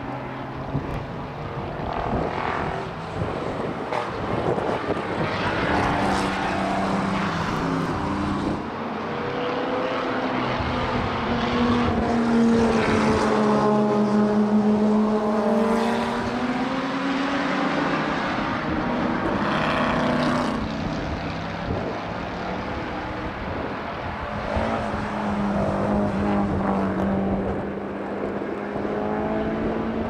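Historic racing cars' engines passing one after another through a corner, with a string of engine notes dropping off and climbing again as the drivers lift, change gear and accelerate. The loudest pass comes about halfway through.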